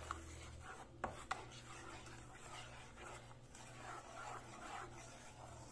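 Wooden spoon stirring passion fruit pulp, seeds, sugar and water in a ceramic-lined pot, with faint, irregular scraping and a few sharp knocks in the first second and a half.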